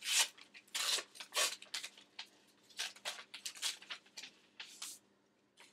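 Paper rustling in many short, irregular bursts as a greeting card, its envelope and gift-bag tissue paper are handled and opened; the bursts die away near the end.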